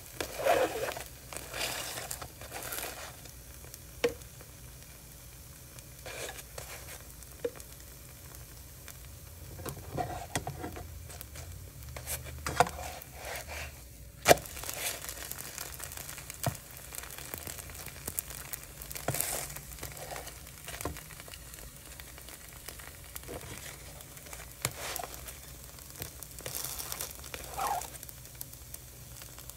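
Spinach wrap batter sizzling and bubbling as it cooks in a frying pan, still moist. Scattered sharp clicks and knocks sound over it, the loudest about fourteen seconds in.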